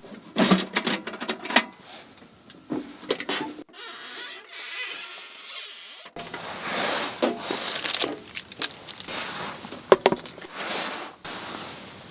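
Irregular clicks, rustling and scraping from hands handling cooking gear and food. A louder knock comes about ten seconds in.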